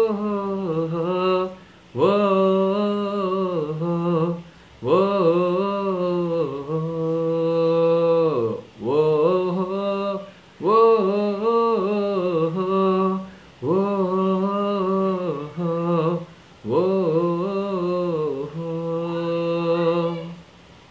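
A man singing a slow melody without words, unaccompanied, in phrases of two to three seconds with short breaks between them; the singing stops shortly before the end.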